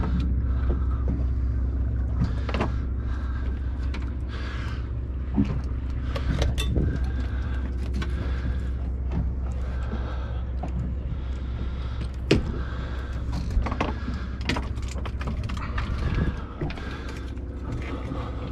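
Knocks and clatter of fishing gear on a fiberglass boat deck as a red snapper is unhooked in a landing net, over a steady low rumble.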